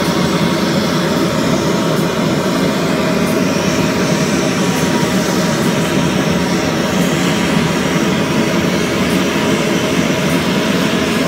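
Hand-held gas torch burning steadily as its flame is played over stacked metal bangles, heating them until they glow: a loud, even rushing noise with no breaks.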